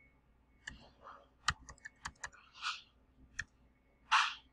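Scattered sharp clicks of a computer keyboard and mouse, about half a dozen, with two short breathy rustles, one midway and one near the end.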